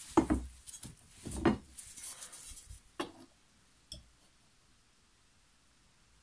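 Steel lawn mower blade being hung on a thick nail in the side of a wooden bench: about four metal clunks and knocks over the first four seconds as it goes onto the nail and settles, the one about a second and a half in the loudest.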